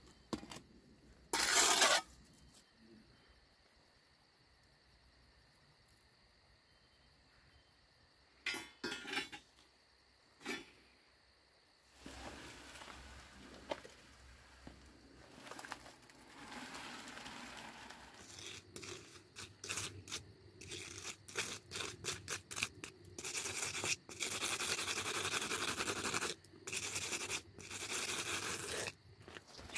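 Wooden float scraping and rubbing across wet concrete on top of a cinder block wall, in long strokes that are loudest near the end. Before that come a few short scrapes and knocks, then a softer uneven scratching.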